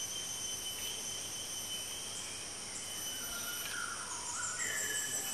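Rainforest insect chorus: several steady, shrill high-pitched drones, with a few short gliding calls over it in the second half.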